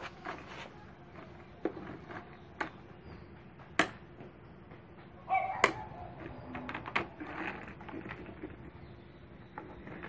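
Scattered clicks and knocks of hard plastic being handled: the Bosch GAS 15 wet/dry vacuum's plastic container and casters, with a few sharper knocks partway through.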